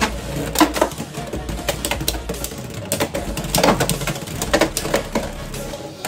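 Two Beyblade X spinning tops running in a plastic stadium, clashing against each other with several sharp plastic-and-metal clacks and a light rattling between hits.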